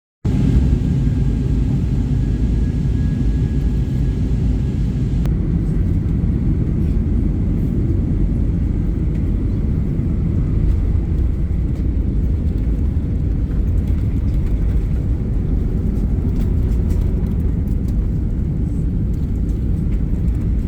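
Steady low rumble of a moving vehicle, with a faint high tone over the first five seconds.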